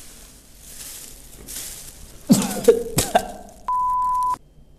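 A person coughing and spluttering in a few loud, short fits, followed by a single steady high beep lasting under a second.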